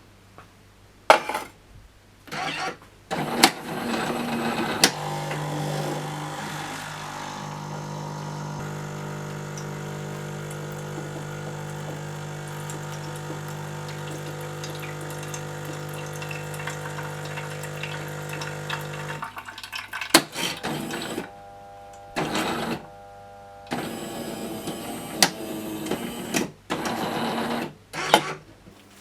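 Jura Z5 automatic espresso machine running: a few clicks, then a steady motor hum that runs for about fifteen seconds and cuts off suddenly. It is followed by a series of shorter buzzing bursts and knocks.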